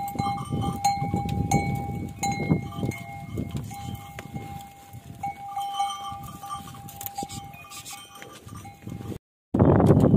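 Metal bell on a zebu cow's neck clanking over and over as the herd walks, growing fainter; it breaks off with a short dropout about nine seconds in, after which louder outdoor noise takes over.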